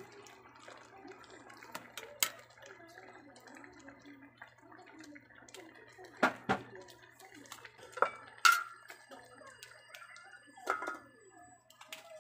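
Stainless steel pot of coconut milk with shrimp and pechay simmering, with several sharp metal clinks and clanks of the pot and its stainless lid as the lid is set on.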